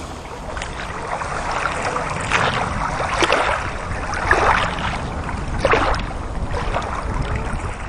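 Water splashing and washing, with several louder splashes over a steady wash.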